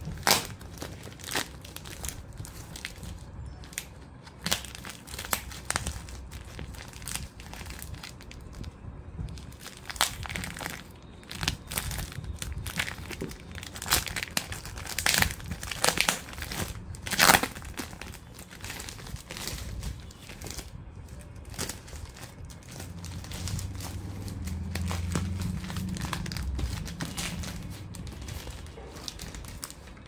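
Plastic courier mailer crinkling and tearing as it is ripped open and pulled off a cardboard box: an irregular run of rustles with a few sharper, louder crackles.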